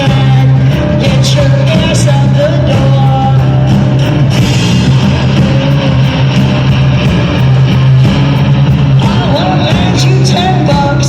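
Live noise-rock band playing an instrumental passage: a heavy, steady droning bass note under electric guitar lines and evenly spaced drum and cymbal hits, with a cymbal crash about four seconds in.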